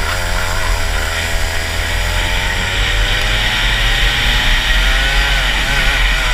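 Rotax Max 125cc two-stroke kart engine heard onboard. The revs waver through a corner, climb steadily along a straight for about four seconds, then drop as the kart slows for the next corner. It runs on a 72/12 final drive that is too long for this twisty track, so it pulls out of the corners less well than it should.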